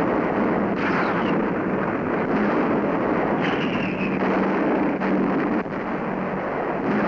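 Continuous heavy rumble of bomb explosions over a steady low drone, with a high falling whistle about a second in and again about three and a half seconds in.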